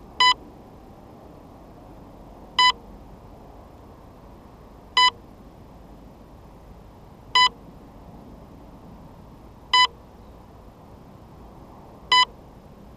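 An electronic beeper on a crashed RC model sounds six short, identical high beeps, one about every two and a half seconds, over a steady low hiss.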